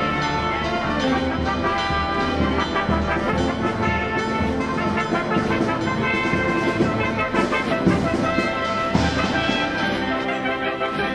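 Brass band music: trumpets and trombones playing sustained chords.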